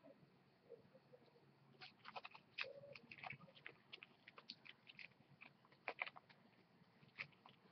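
Faint, scattered clicks and crinkles of duct-tape crafts being handled and moved about.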